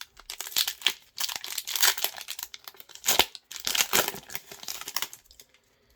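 Foil booster pack wrapper crinkling and being torn open by hand, a run of crackly rustles that stops about five seconds in.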